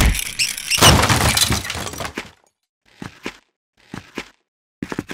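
A crash of shattering glass, loudest about a second in and dying away over about two seconds, followed by a few faint short clicks.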